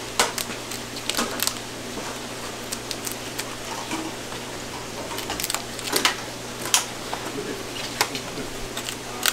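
Kitchen scissors snipping and cracking through the shell of a cooked lobster: sharp, irregular clicks and crunches, several in quick succession about a second in and single loud snaps around six, seven and eight seconds in.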